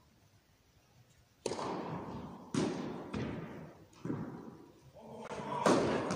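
Tennis rally on an indoor carpet court: about six sharp knocks of racket strikes and ball bounces, starting about a second and a half in, each ringing out in the echo of a large hall, the loudest near the end.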